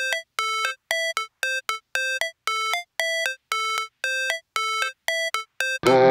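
Background music: a melody of short, separate electronic notes, about two to three a second. Near the end a full music track with a deep bass line comes in and gets louder.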